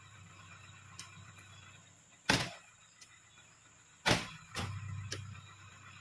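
Oil palm fruit bunches being speared with a spike pole and pitched up into a truck bed: two loud sharp thuds about two and four seconds in, with lighter knocks and a short rumble just after the second.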